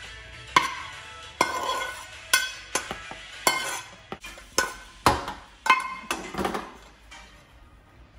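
A metal utensil clinking and scraping against cookware, about a dozen irregular knocks, each with a short ring, trailing off near the end.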